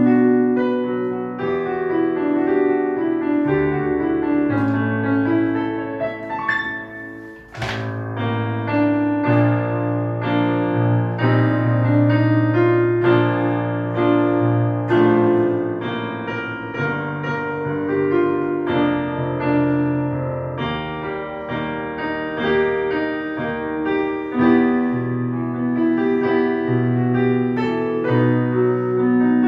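Digital piano played with both hands: a slow piece of sustained chords over a low bass line. Near seven seconds in the level dips briefly, then a sharp click sounds and the playing picks up again.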